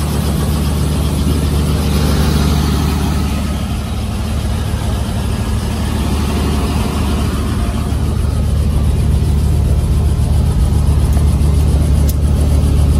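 Helicopter engine and two-bladed main rotor running steadily on the ground: a loud, even drone with a strong low hum.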